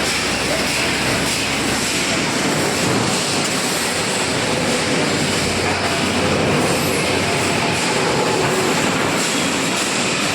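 Robotic welding line running: a steady, loud, dense hiss of machinery with faint hums in it.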